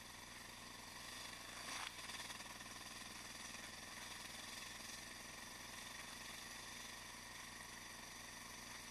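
Yamaha XT660X single-cylinder engine with a Mivv exhaust, running faint and steady at low speed, with a brief swell about two seconds in.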